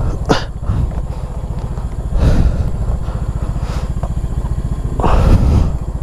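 Motor scooter's single-cylinder engine running at low revs with a steady fast pulse, swelling twice with short bursts of throttle, about two seconds in and near the end, as the bike is worked through slippery mud. A sharp click comes just after the start.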